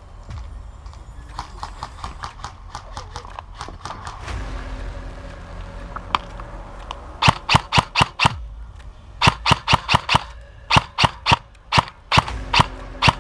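Airsoft guns firing quick strings of sharp shots, fainter at first, then louder volleys of several shots a second in three or four groups over the second half.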